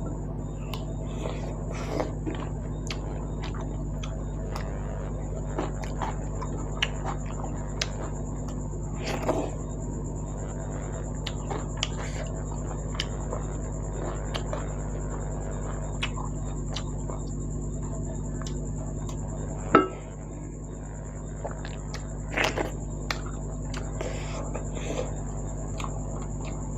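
Close-up eating sounds of dhido and meat: chewing and soft wet squishes with scattered clicks and taps of dishes, over a steady hum and a thin high whine. There is one sharper knock about 20 seconds in.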